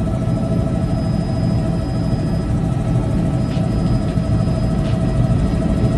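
Helicopter in flight heard from inside the cabin: a loud, steady rumble of engine and rotor with a constant high whine over it.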